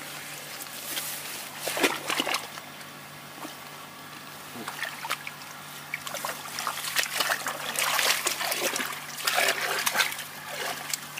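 Splashing and sloshing in a shallow muddy ditch as hands grope through the water and mud, in irregular bursts that come thickest about two seconds in and again over the last few seconds.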